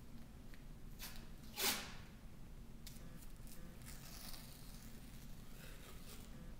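Athletic tape being pulled off its roll and wrapped around a foot: one short, loud rip about a second and a half in, then fainter rustling of the tape.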